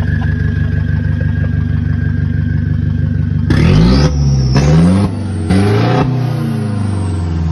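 Heavily tuned 2018 Isuzu D-Max 1.9 four-cylinder turbodiesel idling steadily, then revved hard three times in quick succession from about three and a half seconds in. Each blip drops back before the next, and the engine then settles toward idle with a high turbo whine falling away near the end.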